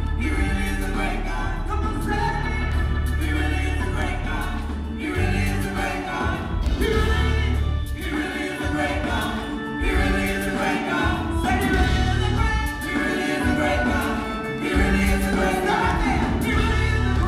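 Gospel church choir singing a Christmas song, with lead singers on handheld microphones over amplified accompaniment carrying a strong bass line.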